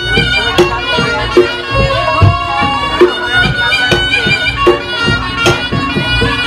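Reog Ponorogo gamelan playing live: a slompret, the reedy double-reed shawm, carries a melody over drums and struck gong-chime percussion keeping a steady beat.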